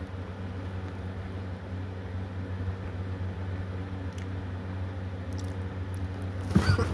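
A man chewing a peanut-butter-stuffed McGriddle over a steady low hum; about six and a half seconds in he coughs suddenly and loudly as a mouthful goes down the wrong pipe.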